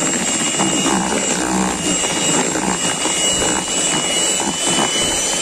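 Electric hand mixer running at a steady speed, its beaters churning thick cake batter in a bowl, with a high steady motor whine.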